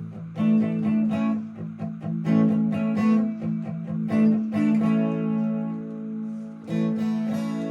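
Epiphone SG Special electric guitar played through a Vox MV50AC amp into a 10-inch speaker cabinet. Repeated strummed chords, with one chord left to ring for about two seconds past the middle before the strumming starts again.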